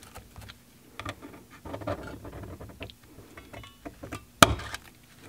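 Handheld center punch firing against an iPhone 12's glass back with one sharp, loud snap about four seconds in, cracking the thick glass around the camera lenses so it can be picked out. Before it come light ticks and scrapes as the tool tip is placed on the broken glass.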